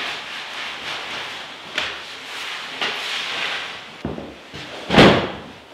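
Foam mattress handled over a wooden slatted bed frame: scuffing and a couple of light wooden knocks, then a heavy thump near the end as it drops onto the slats.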